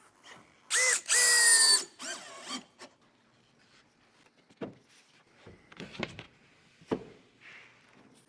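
Power drill driving a screw to fasten the wall panel to the base frame: a brief pulse, then a longer run whose pitch sags slightly as the screw bites. A few scattered knocks follow later on.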